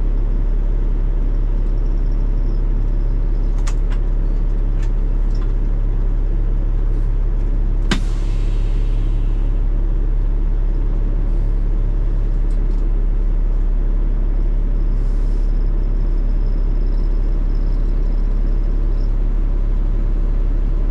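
Semi truck's diesel engine idling steadily, heard from inside the cab. A few light clicks come around four to five seconds in, and a sharp click with a short hiss about eight seconds in.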